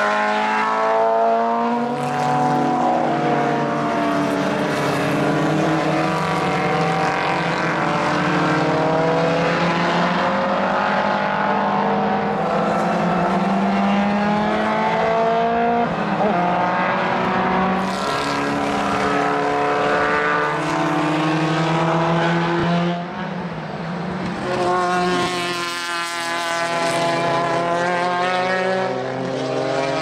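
Engines of several historic single-seater formula racing cars passing at racing speed, their notes overlapping and rising and falling through gear changes.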